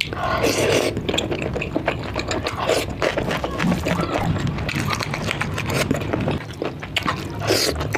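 Close-miked wet eating sounds from a curry meal: a dense, continuous run of small wet clicks and smacks.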